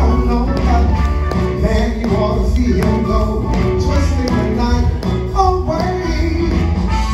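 Live music: a male singer singing into a microphone over a loud band backing with a heavy bass line.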